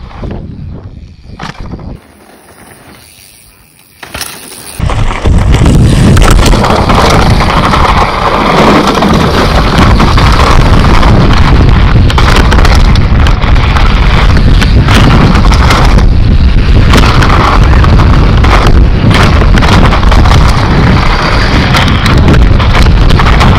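Wind buffeting the camera microphone over the rattle and crunch of mountain-bike tyres on a dirt trail during a fast descent, with frequent knocks from bumps. The sound is quieter at first, jumps up about five seconds in, and stays loud and steady after that.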